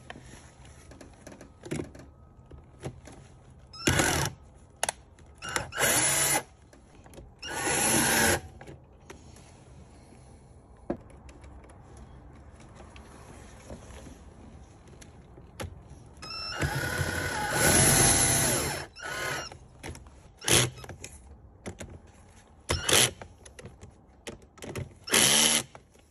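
Cordless drill/driver running in short bursts on a bolt of a Jeep Wrangler's battery terminal clamp, about seven times. The longest burst lasts about two and a half seconds, and the motor's pitch rises and falls as the trigger is worked.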